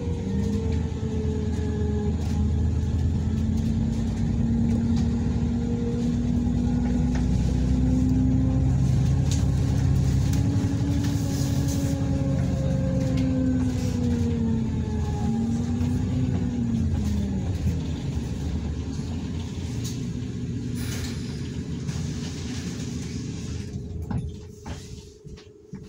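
Bus engine and drivetrain heard from inside the passenger saloon while the bus is under way, a steady low rumble whose pitch rises and falls several times. It quietens sharply near the end.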